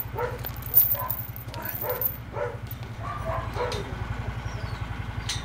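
Laika hunting dogs whining and yipping now and then, over the steady low running of an idling engine.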